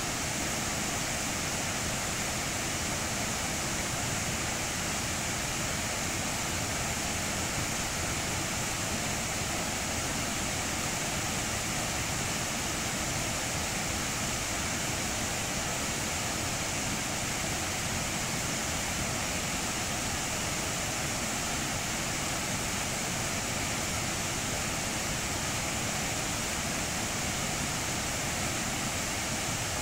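Rushing water of a rocky stream pouring over boulders in rapids: a steady, unbroken rush.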